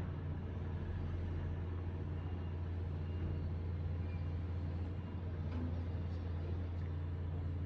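A steady low mechanical hum, like an engine running at constant speed, that does not change.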